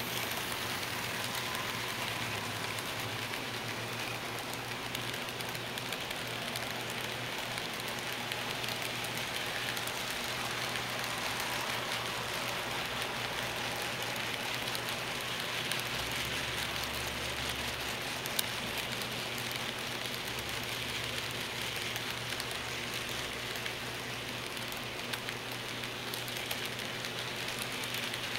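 HO-scale model freight cars rolling past, their wheels clicking over the rail joints and turnouts in a steady fine clatter.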